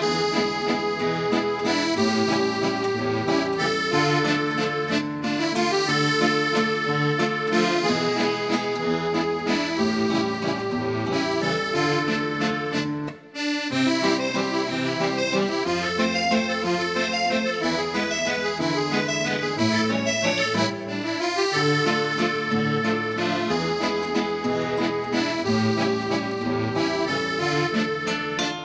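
Instrumental background music with held chords over a bass line, which breaks off for a moment about halfway through and then resumes.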